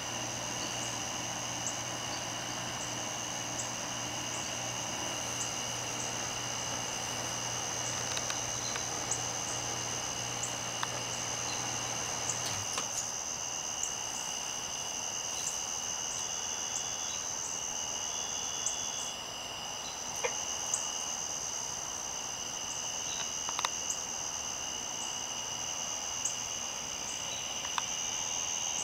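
Insect chorus: a steady high-pitched trill with faint scattered clicks. A low steady hum underneath stops about twelve seconds in.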